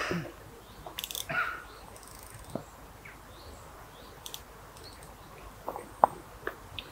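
Irregular light clicks and crunches close to the microphone, with one sharper click about six seconds in.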